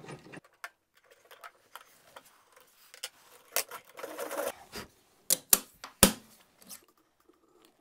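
Small metal clicks and rattles as a router collet is fitted beneath a router table's insert plate and a metal reducing ring is laid into the plate, with a brief scrape about four seconds in and three sharp metal knocks between five and six seconds in.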